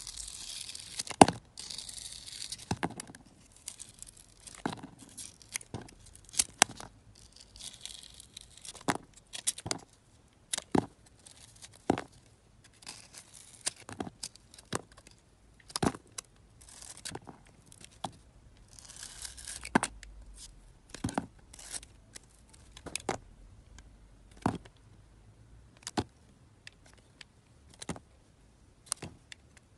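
Snap-off utility knife blade slicing through a glitter-coated bar of soap: a run of short sharp cracks, roughly one a second, as slices come away, with a few stretches of scraping hiss as the blade is drawn through.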